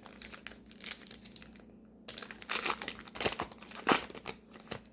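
Foil trading-card pack wrapper being torn open and crinkled, in irregular crackly bursts with a couple of sharper snaps near the end.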